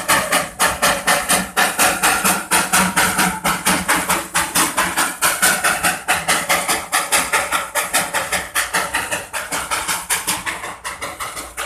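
Darjeeling Himalayan Railway toy train's steam locomotive chuffing steadily as it pulls, about four sharp beats a second, the beats growing a little weaker near the end.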